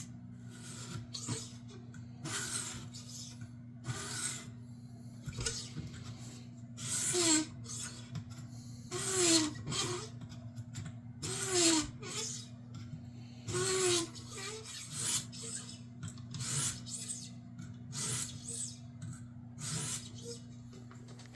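Slow, repeated hand scraping strokes on a workpiece, about one every second or two, several ending in a short squeak, over a steady low electrical hum.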